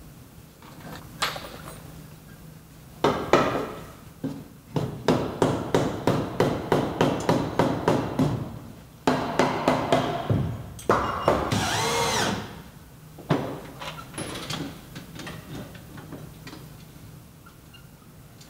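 Prefabricated wooden soffit blocking being fastened overhead: a run of quick, regular knocks on wood, about three a second, then a cordless drill whirring up to speed and winding back down as it drives a fastener.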